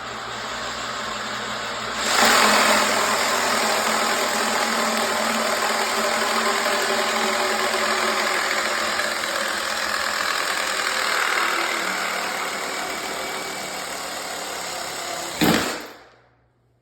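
Reciprocating saw (Sawzall) cutting through a drain pipe. The motor runs for about two seconds, then gets much louder as the blade bites into the pipe, and the cut continues steadily until the saw stops near the end.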